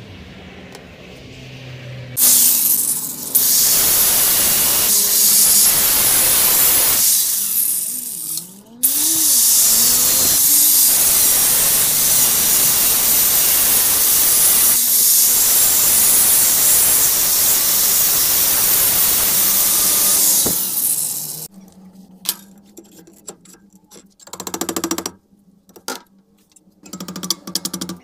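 Angle grinder cutting metal held in a vise: it starts about two seconds in and runs loud and steady, drops out briefly around eight seconds, spins back up and cuts on until it stops about three-quarters of the way through. After that come a few quieter, scattered knocks.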